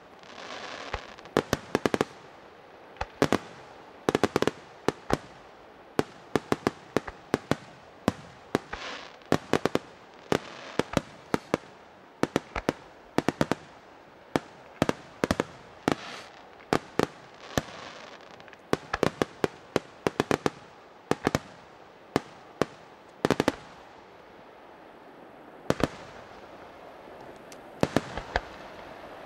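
Aerial fireworks shells bursting in a dense, irregular series of sharp bangs, with a short lull a few seconds before the end.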